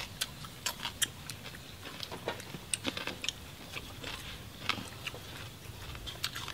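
People eating crispy jar-roasted pork belly: chewing with irregular short crunches and clicks as the crackling skin breaks.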